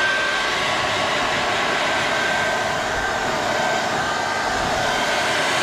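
Handheld hair dryer blowing steadily, a rush of air with a thin steady whine.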